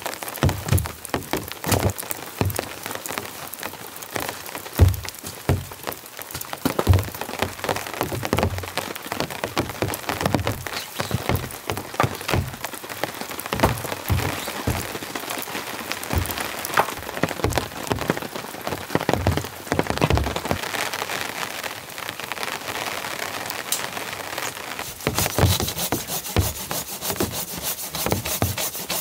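Heavy rain falling steadily on a tarp and rain jacket, with many sharp knocks and taps among it as stones are picked up and set down to build a fire pit. The rain's hiss grows louder and brighter near the end.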